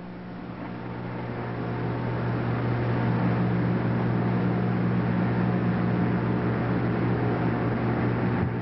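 Steady electrical hum with a hiss over it. It swells over the first three seconds, then holds steady.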